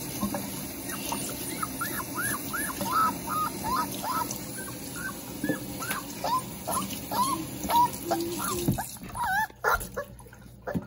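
A four-pound puppy whining and whimpering in short, rising-and-falling cries, one after another, protesting at being bathed, over running tap water in a steel kitchen sink.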